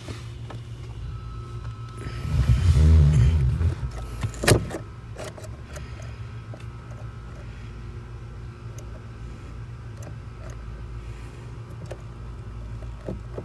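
Hands working the clutch pedal assembly to refit a compressed clutch spring: faint clicks and rubbing of parts over a steady low hum, a louder low rumbling stretch about two seconds in, and one sharp click a moment later.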